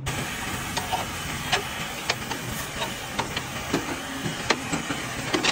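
A steady hiss with irregular sharp knocks and clicks over it, starting abruptly.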